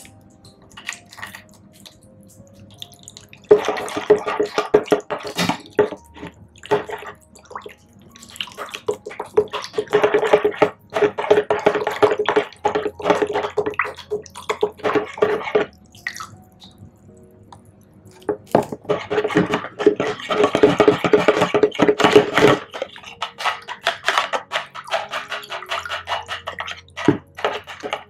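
Milk poured from a carton into a bowl of mashed avocado, splashing into the mixture in four spells of a few seconds each. Soft background music runs underneath.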